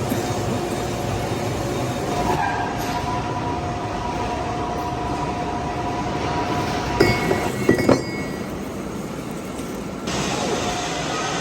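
Metal lathe running with a steady whine over a constant hiss, with a few sharp metallic clinks about seven to eight seconds in.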